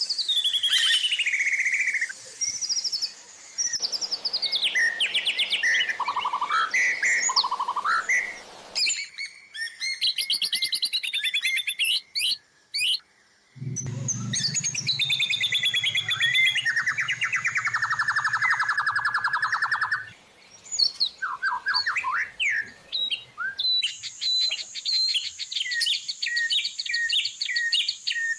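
A montage of songbird recordings made as a tutor track for white-rumped shamas, cutting abruptly to a different bird every few seconds. It runs through varied whistles, gliding notes and trills, ending with a run of rapid repeated chips.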